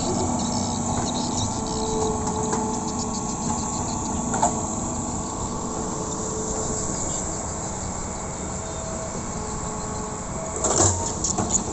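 Hitachi EX200LC excavator's diesel engine running steadily, with a loud clatter a little before the end.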